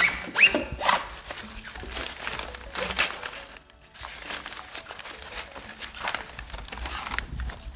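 Handling noise from assembling a playpen frame: nylon mesh fabric rustling, with irregular scrapes and clicks of metal pipes sliding through fabric sleeves and into plastic connectors, over background music.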